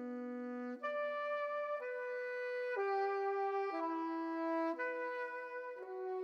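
Background music: a slow solo melody of held notes, changing pitch about once a second.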